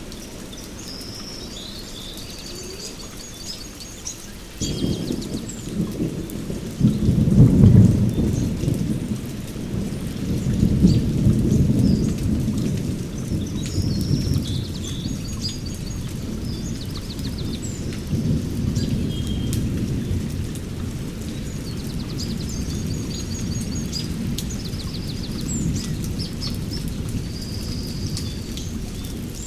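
Steady rain falling in a rainforest, with thunder breaking in about four seconds in, loudest a few seconds later, then rumbling on to the end. Birds call with repeated high chirps and trills over the rain.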